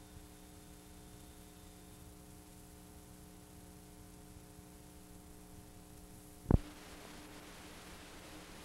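Faint steady hum and hiss of a VHS tape playing past the end of its recording, with one sharp click about six and a half seconds in, after which the hiss is a little louder.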